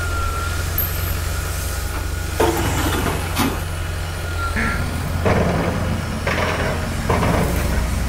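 A steady low engine hum, like a heavy vehicle running, with several sharp knocks over it.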